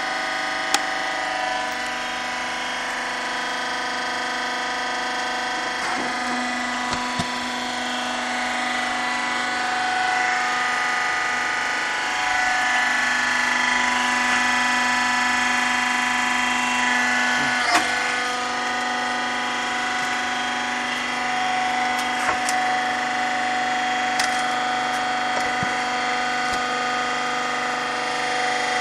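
Hydraulic log splitter running with a steady whine from its motor and pump, while the ram forces logs against the splitting wedge. A deeper tone holds for about ten seconds in the middle as a log is pushed through and ends in a loud crack of wood giving way, and further sharp cracks of splitting wood come now and then.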